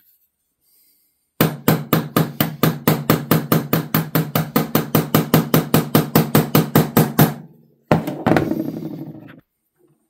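Small hammer tapping rapidly and evenly on the end of a steel pin clamped in a bench vise, about five light strikes a second for some six seconds, with a low ringing from the vise under them. The taps peen the pin's end to spread it, so that it holds the pocket knife's bail. A shorter, rougher noise follows near the end.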